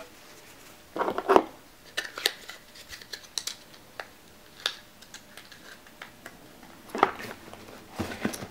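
Hands handling small cosmetic products and their packaging: scattered clicks, taps and brief rustles, with small clusters about a second in and again near the end.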